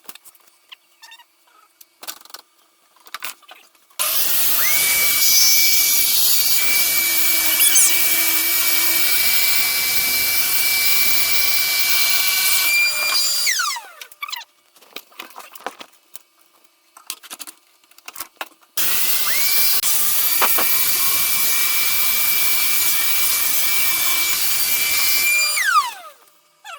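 Electric saw fitted with a vacuum dust-collection attachment, run twice to cut wood. Each time the motor spins up to a steady high whine and winds down with a falling pitch when switched off. There are light handling clicks between the runs.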